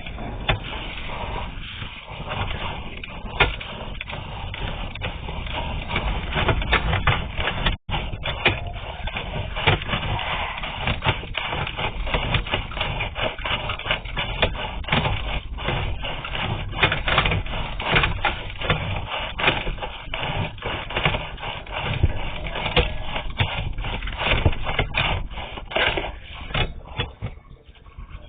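Sewer inspection camera's push cable being pulled back out of the drain pipe, with a steady run of scraping and clicking as the cable drags through the pipe.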